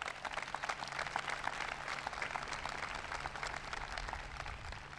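Outdoor crowd applauding, a dense patter of many hands clapping that thins out and fades near the end.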